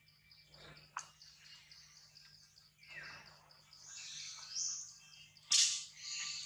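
Forest ambience: birds chirping over a rapid, steady insect trill, with a short loud burst about five and a half seconds in.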